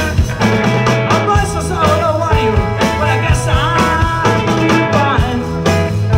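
Live rock-and-roll band music: a guitar line bending in pitch over a steady bass and drum beat.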